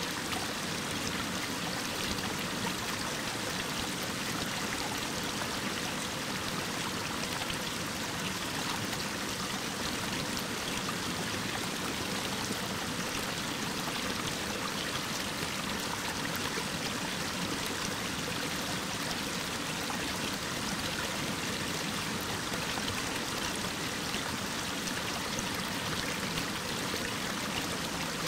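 Mountain waterfall pouring down a rock face: a steady, even rush of falling water.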